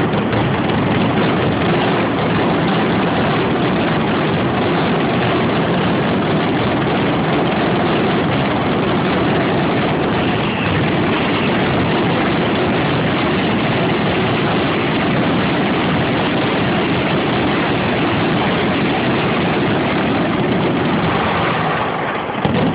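Fireworks finale: a loud, dense barrage of exploding shells and firecrackers, so rapid that the blasts merge into one continuous rumble, easing slightly near the end.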